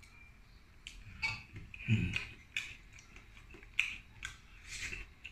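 Eating with the fingers: scattered small clicks and snaps of mussel and clam shells being pulled open by hand, mixed with mouth sounds of chewing, with one fuller knock about two seconds in.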